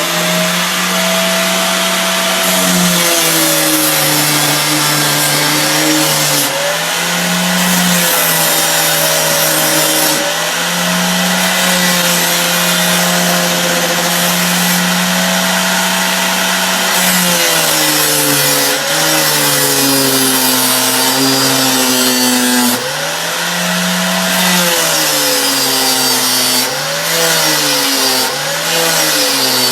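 Grinder with an 80-grit wheel running while a forged steel hook tool is ground on it. The motor's hum sags in pitch and recovers several times as the steel is pressed against the wheel and eased off, over a steady grinding hiss.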